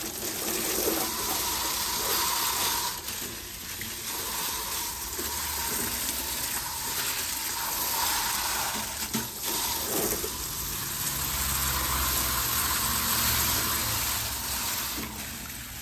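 Hose spray of water rushing down into an open air-conditioner condensing unit, splashing onto the compressor shell and the base pan.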